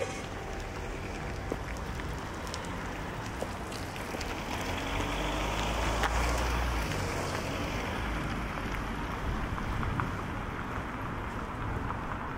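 Outdoor street ambience: a steady wash of traffic noise, with a vehicle passing about halfway through, its low rumble and tyre hiss swelling and then fading. Scattered small ticks throughout.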